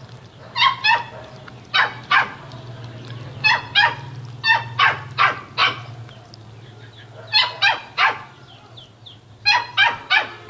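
A dog barking repeatedly in short, sharp yaps that come in clusters of two to four, over a steady low hum.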